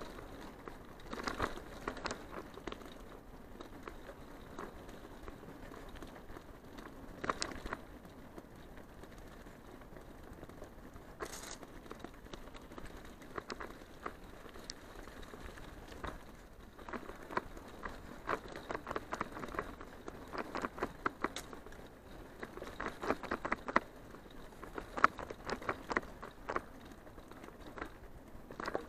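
Bicycle rolling along a dirt forest track strewn with dry leaves: a low steady rolling noise with many scattered crunches and clicks, thickest in two spells in the second half.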